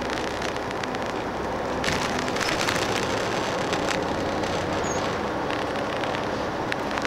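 Airport limousine bus on the move, heard from inside: steady engine drone and road noise. From about two seconds in it grows louder and brighter, with scattered clicks and rattles.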